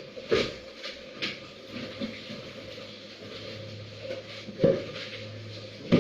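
Four sharp clanks and knocks of hard objects being handled, the loudest two near the end, over a faint low steady hum.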